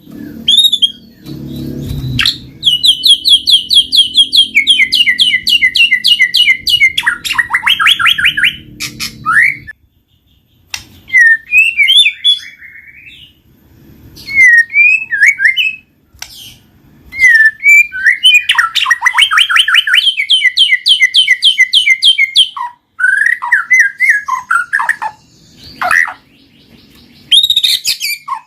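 White-rumped shama (murai batu) singing: long, fast trills of rapidly repeated notes, twice, with short varied whistled phrases between them.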